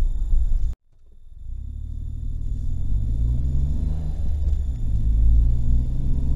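A car's engine and road noise heard inside the cabin, a low rumble with an engine note that climbs as the car gathers speed, dips about four seconds in, then climbs again. Near the start the sound cuts out completely for a moment and fades back up over about a second.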